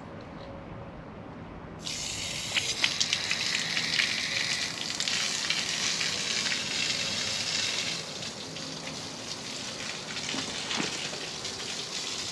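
Water from a garden hose rushing through a stainless-braided -6 PTFE hose and spraying out of its open end onto the ground, a steady hiss that starts suddenly about two seconds in and eases a little after about eight seconds. The new hose is being flushed at full flow.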